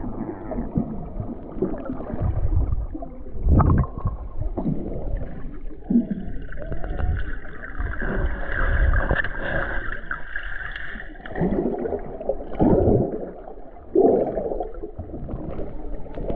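Muffled underwater sound from a camera carried by a swimmer: uneven gurgling, sloshing swells and dull knocks of moving water. A higher, hum-like sound holds for several seconds in the middle.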